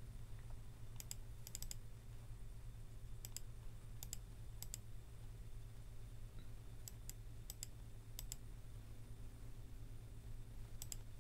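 Computer mouse buttons clicking: sharp clicks, mostly in pairs or small clusters, coming every second or so with gaps, over a steady low hum.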